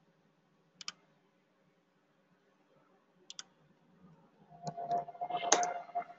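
Computer mouse clicks: a quick double click about a second in and another a little after three seconds, then a busier run of clicks and keyboard taps near the end.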